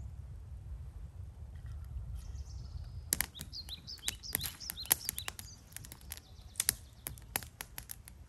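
Campfire crackling, with sharp, irregular pops from the burning wood starting about three seconds in, while a songbird chirps through the first half. A low wind rumble fills the opening seconds.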